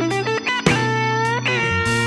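Background music: a guitar plays a melody of plucked notes, several bent in pitch, over a steady bass.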